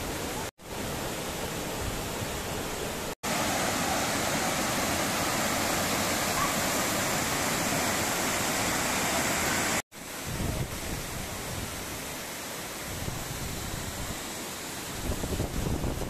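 Steady rushing of a forest waterfall and the rocky stream below it, broken by three very short gaps of silence. It is loudest in the middle stretch, then softer, with uneven low rumbles near the end.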